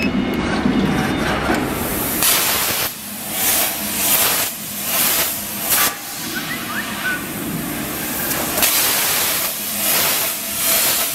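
CNC plasma cutter's torch arc cutting steel plate: a loud, harsh hiss that starts about two seconds in and repeatedly swells and dips.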